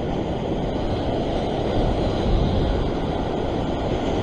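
Ocean swell surging and foaming against shore rocks, with wind buffeting the microphone: a steady rushing noise that swells briefly about two seconds in.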